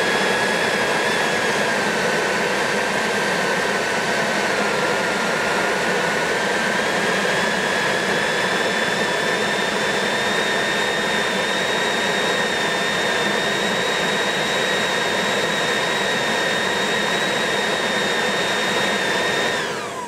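Leaf blower running on high, a loud steady rush of air with a high whine that sags slightly a few seconds in and then holds level; it shuts off at the very end, the whine falling away. Its air stream reads about 55 to 60 mph a foot from the nozzle.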